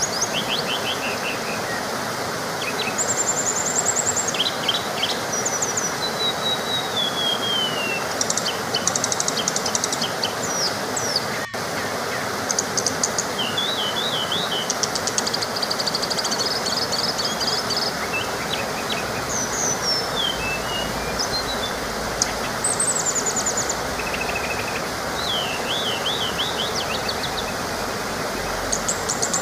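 Small waterfall rushing steadily, with many birds chirping and trilling over it. There is a momentary dropout in the sound about eleven seconds in.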